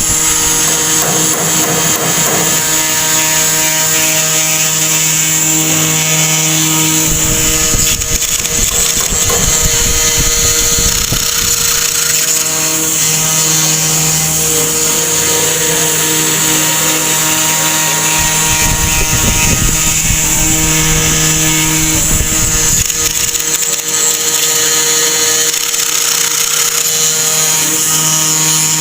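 Mini CNC router's spindle motor running steadily with a constant high whine, with bursts of low rumble from cutting now and then.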